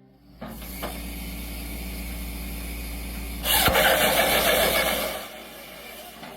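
Engine of a firewood processing machine running steadily with a low hum. From about three and a half to five seconds in, a louder, harsher noise rides on top, then it drops back to quieter running.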